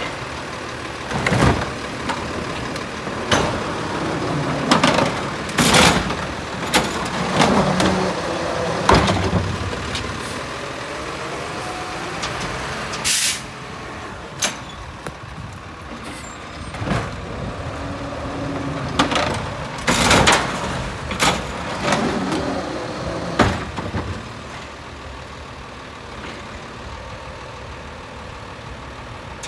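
Automated side-loader garbage truck at work with its engine running: repeated bangs and clanks as the arm dumps a recycling cart and sets it down, and a short sharp air hiss about halfway. Near the end the knocking stops and only the steadier engine sound of the truck moving off remains.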